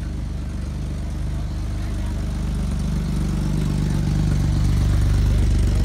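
A classic car's engine running at low speed as the car drives slowly past, growing louder as it comes close.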